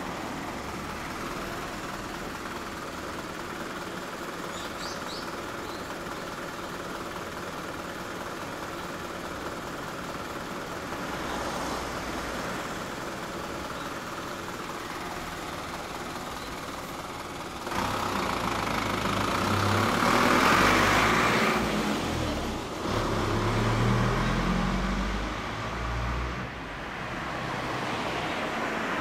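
Motor vehicle engine sound: a steady hum, which grows suddenly louder about 18 seconds in, with the engine pitch shifting, then eases off near the end.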